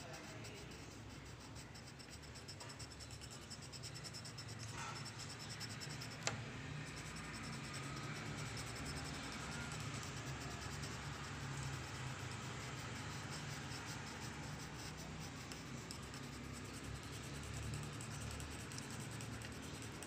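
A drawing tool's tip scratching steadily across a sheet of paper as it draws and shades, with one sharp click about six seconds in.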